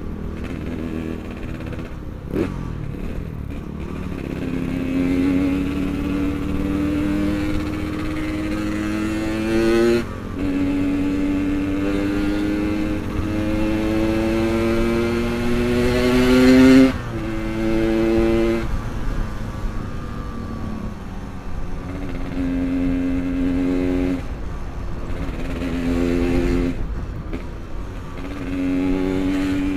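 Yamaha RX-King two-stroke single-cylinder engine pulling up through the gears. Its pitch climbs steadily for several seconds and dips briefly at each gear change about ten and seventeen seconds in. After that it comes in shorter bursts as the throttle is eased off and opened again, then climbs once more near the end.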